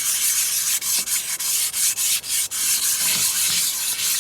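A brick scraping back and forth over the inside of a rusted cast iron skillet, a continuous gritty rasp in quick repeated strokes: the rust is being scoured off the oiled iron.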